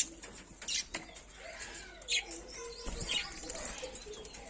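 Small birds chirping: three sharp, high chirps about a second apart over softer, continuous lower calls.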